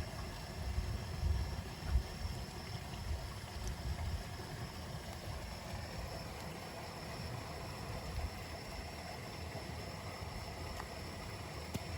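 Low, uneven outdoor rumble with no distinct event, a little louder in the first couple of seconds, with a few faint clicks.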